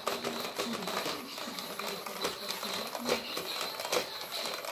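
Robosapien V1 toy robot's small motors and plastic gearboxes running as it moves its arms and body, with a rapid irregular clicking and a faint high whine.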